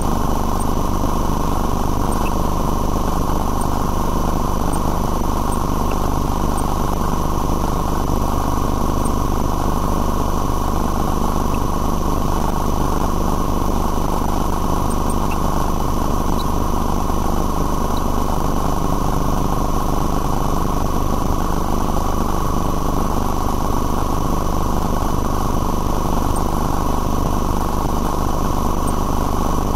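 A steady, unchanging machine hum with a constant high whine over it, no starts or stops.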